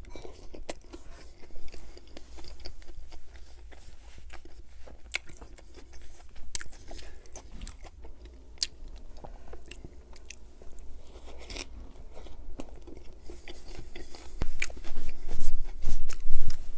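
Close-miked chewing of a mouthful of Burger King Whopper Jr. burger, with many small mouth clicks. About two seconds before the end it gets louder as a paper napkin is crumpled and rubbed over the hands.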